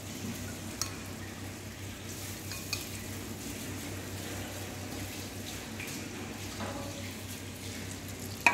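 Butter melting and sizzling in a frying pan over a gas flame, a steady hiss, as demerara sugar goes in for a caramel sauce. A sharp click about a second in and a few lighter clinks of utensils or pan.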